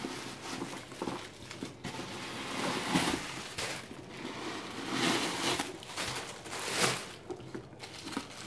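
Tissue-paper stuffing rustling and crinkling as it is pulled out of a leather handbag, in irregular bursts of handling noise.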